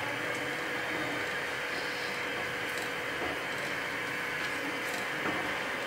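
Steady hiss of a stovetop burner under a pan of milk heating toward a boil, with a few faint touches of a silicone spatula stirring it.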